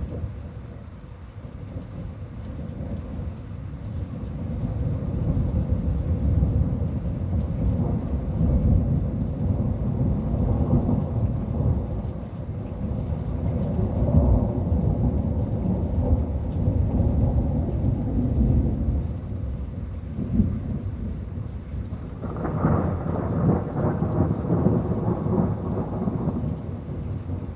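Thunder rolling in a thunderstorm, with rain: a long low rumble that swells and fades several times, then a sudden louder, sharper peal about 22 seconds in.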